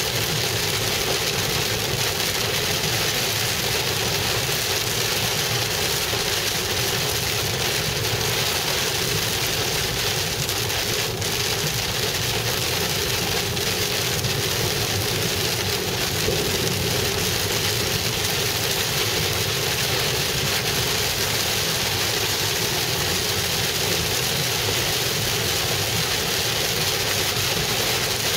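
Heavy rain pelting the car's roof and windshield, heard from inside the cabin while driving, mixed with road noise as one steady, dense hiss.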